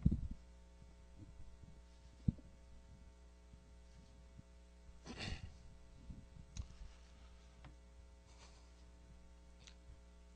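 Steady electrical hum from a live microphone, with a sharp knock at the start and another about two seconds in as the microphone is handled. About five seconds in there is a short breathy rush of noise.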